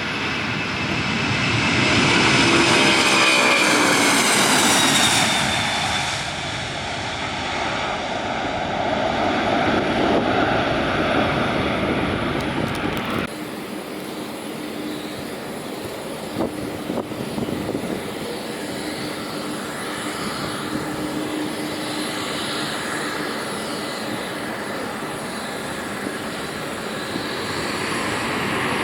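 Jet airliner engines running loud as an aircraft passes close by, their whine falling in pitch over the first few seconds. About 13 seconds in the sound changes abruptly to steadier, somewhat quieter jet engine noise with a low hum.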